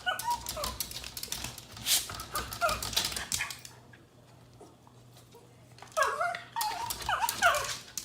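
A dog whining in short, high cries with bending pitch, falling quiet for a couple of seconds midway, then a few more cries near the end.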